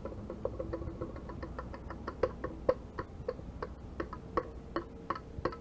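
Experimental noise music played from a cassette: short pitched, clicking notes struck at an uneven pace, getting busier after about two seconds, over a steady low hum.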